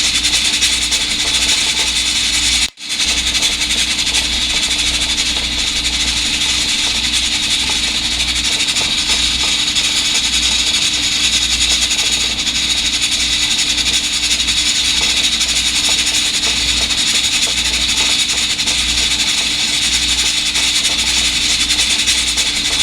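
Electric pressure rice cooker running while cooking rice: a steady hiss with a low hum, cut off briefly about three seconds in.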